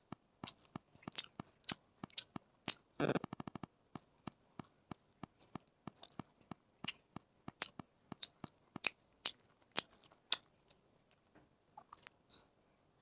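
Close-up chewing and biting of chicken kabab: a string of sharp, irregular mouth clicks and smacks, with a quick run of rapid clicks about three seconds in.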